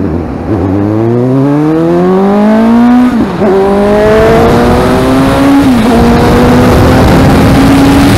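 Suzuki GSX-S750 inline-four through a Yoshimura R-11 exhaust, accelerating hard through the gears. The engine note climbs steeply, dips at an upshift about three seconds in, climbs again, and dips at a second upshift near six seconds before rising on.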